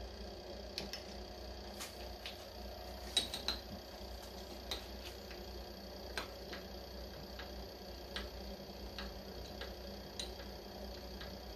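Small benchtop milling machine's motor humming steadily while the table's X handwheel is cranked by hand, with irregular light clicks about once or twice a second.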